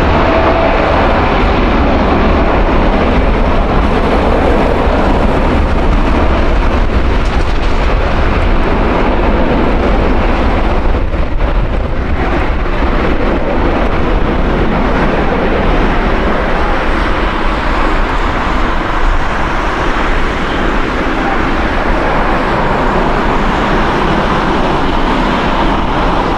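Boeing 787-9 airliner's twin turbofan engines at high power as it rolls along the runway: a loud, steady jet roar.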